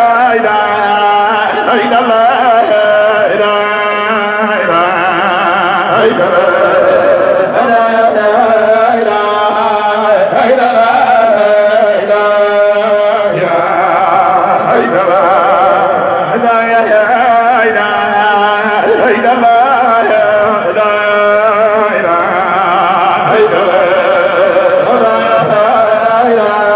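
A man's voice chanting Sufi zikr (dhikr) into a microphone, melismatic, with wavering vibrato and long drawn-out notes.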